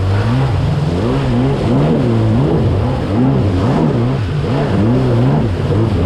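Two-stroke stand-up jet ski engine revving, its pitch swinging up and down about twice a second over the rushing of water.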